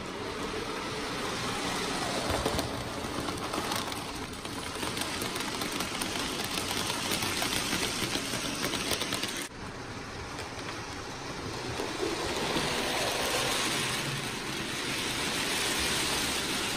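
Hornby OO-scale model locomotive running on the track, its small electric motor whirring and its wheels rattling in a steady mechanical clatter. The sound drops out for a moment about nine and a half seconds in, then carries on.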